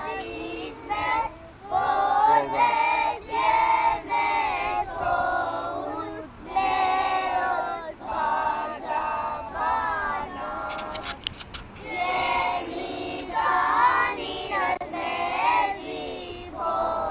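A group of young children singing together, their voices held on long notes. A brief cluster of clicks sounds about midway.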